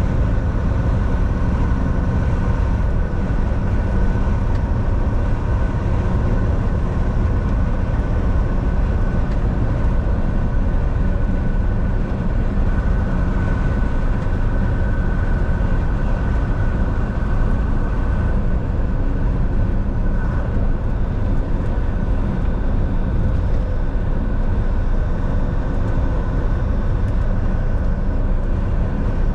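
Volvo semi truck driving at a steady pace: a low, even engine drone with road and tyre noise and a faint steady high whine.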